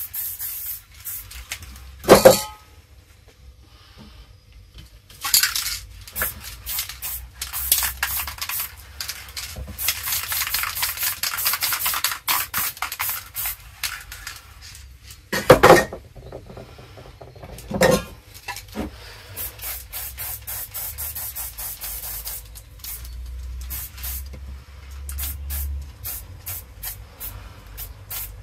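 Aerosol spray-paint can spraying: many short hissing bursts and one longer spray lasting a couple of seconds. Three loud knocks stand out, about two seconds in and twice more after the middle.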